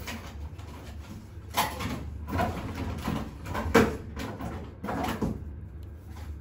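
A few separate knocks and clatters of objects being handled and rummaged through, the loudest about four seconds in.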